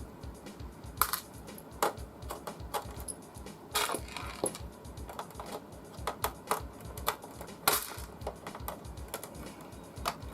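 Irregular small metallic clicks and clinks of screws and tools being handled and worked, a couple of dozen separate ticks with no steady rhythm.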